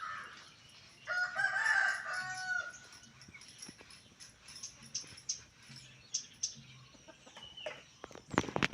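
A rooster crowing once, about a second in, a single call lasting about a second and a half, followed by scattered light ticks and a few sharp clicks near the end.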